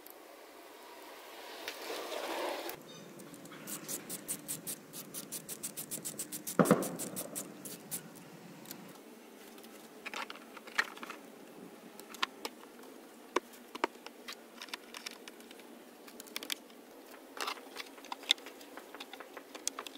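Ratchet wrench clicking in a quick, even run as the new VVT solenoid's 10 mm hold-down bolt is run in, with one louder knock partway through. Then scattered clicks and taps as the solenoid's wiring connector and the plastic engine cover are fitted back on.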